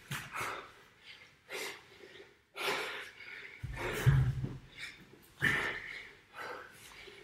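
Hard, rapid breathing of a man mid-workout doing burpees: short, sharp exhales and gasps about every half second to a second. One heavy low thud about four seconds in is the loudest sound.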